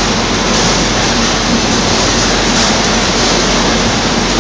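Citrus grading and packing line machinery running, with conveyors and sorting gear making a steady, loud mechanical noise and a low hum underneath.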